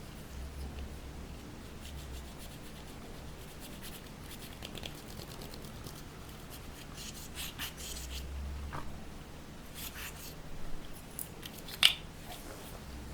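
Slime being mixed and stretched by hand, giving scattered soft sticky clicks and crackles, with one sharp pop near the end.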